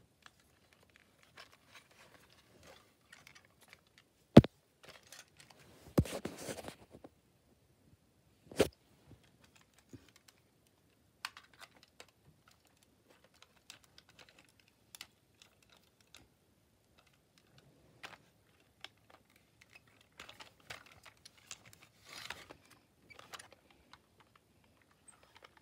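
Scattered clicks and light knocks of a plastic toy V-22 Osprey being handled, with some rustling. A sharp knock about four seconds in is the loudest, followed by a longer rustle and another knock a few seconds later.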